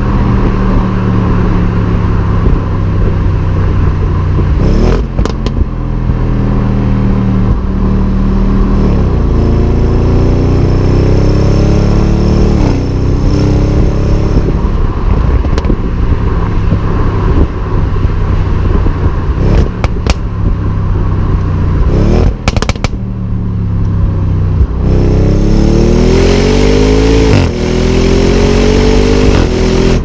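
Audi RS6's twin-turbo V8 exhaust heard right at the tailpipe while driving. The note cruises steadily, then rises in pitch under acceleration twice, each time dropping suddenly at an upshift, with a few short sharp cracks in between.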